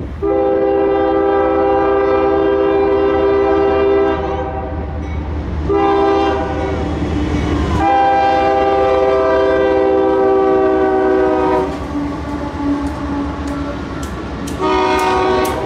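CSX freight locomotive's air horn sounding a crossing signal: a long blast, a second blast that runs into another long one, then a short blast near the end, over the rumble of the passing diesel locomotives. Regular sharp clicks come in during the last few seconds as the train rolls past.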